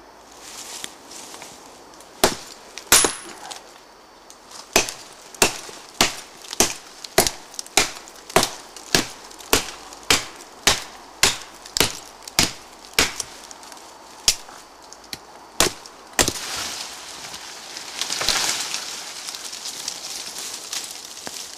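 A ParangXL machete chopping into a green sapling trunk about 12 cm thick: about twenty sharp chops, most at a steady pace of nearly two a second. After the last chop, a long crackling and rustling as the cut trunk gives way and falls through the branches.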